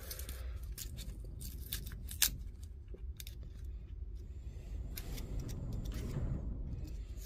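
Old insulation wrap being pulled back from the cell block of a Metabo lithium-ion tool battery pack: scattered sharp clicks and snips over faint rustling.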